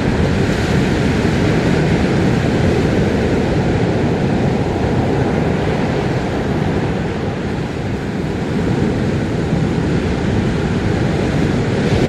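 Ocean surf: waves breaking offshore and washing up the beach in a steady, loud rush.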